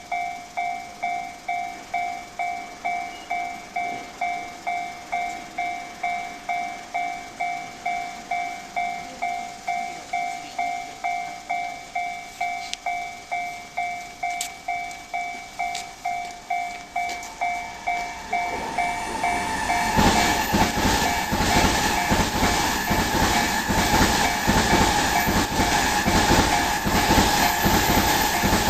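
Japanese level-crossing alarm ringing in an even, repeating two-pitch clang, about one and a half strokes a second. About two-thirds of the way through, an electric commuter train runs through the crossing, loudly, its wheels clattering rapidly over the rail joints and drowning out the bell.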